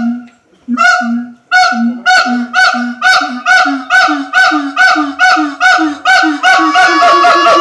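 Gibbons calling: a series of loud hooting notes that speed up as they go. Near the end a second, higher voice joins with a held note that glides down.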